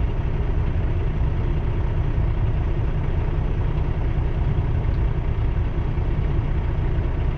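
Steady low rumble inside a stopped semi-truck's cab: the diesel engine idling while a long freight train rolls past.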